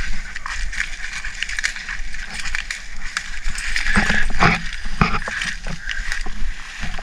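Footsteps crunching and swishing through dry leaf litter and grass, with brush rustling. The crackles come in an uneven run, busiest around four to five seconds in.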